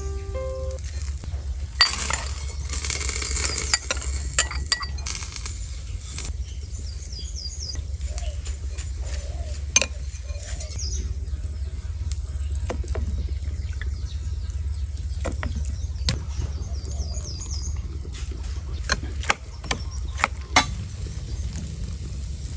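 Kitchen utensils clinking and knocking against dishes and a pan while food is stirred and handled: scattered sharp clinks over a steady low hum.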